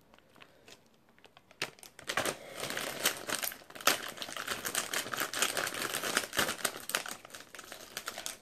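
Crinkly plastic snack wrapper rustling and crackling as it is handled and worked open by hand, starting about a second and a half in.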